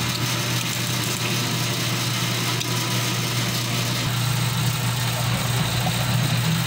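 Motorized, chain-driven sugarcane juice press running with a steady hum as cane stalks are fed into its rollers to be crushed.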